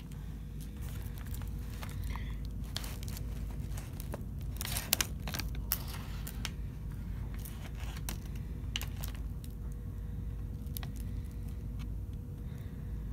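Paper sandwich wrapper rustling and crinkling as hands handle a hoagie and pull the roll apart, with a cluster of sharper crackles about five seconds in, over a steady low hum.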